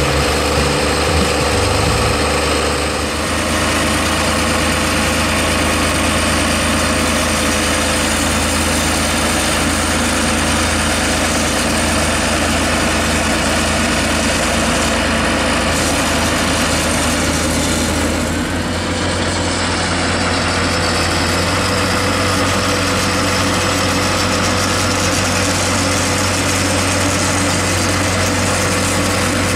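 Diesel engine of a John Deere tractor running steadily while the tractor is stuck in deep mud. The tone shifts slightly about three seconds in and the level dips briefly near the middle.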